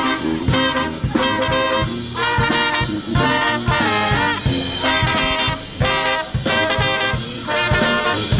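Upbeat swing-style music with brass, trombone and trumpet playing phrases over a steady beat.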